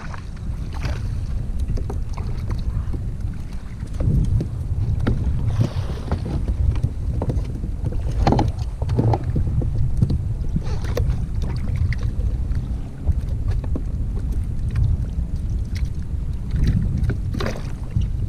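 Wind buffeting the microphone over water lapping at a kayak's hull, with a few short knocks scattered through.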